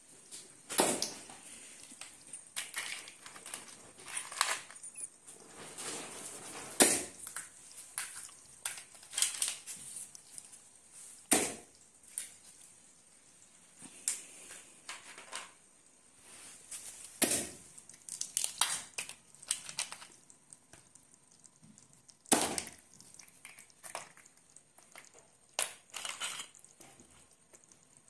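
A large knife chopping crabs in half on a wooden block: sharp, irregular chops and cracks of shell, one every second or few seconds.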